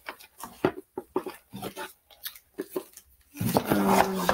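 Scattered light clicks and taps of a cardboard box and its contents being handled, then a short vocal sound near the end.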